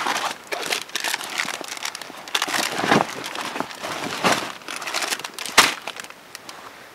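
Fabric rustling and crinkling as hands rummage inside a stuffed fabric sack and handle it, with a sharp knock about five and a half seconds in.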